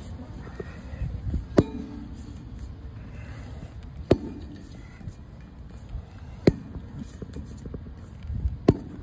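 Four sharp knocks about two and a half seconds apart, with softer thumps and shuffling between them: someone climbing down a wooden ladder, their steps and grips knocking on the rungs.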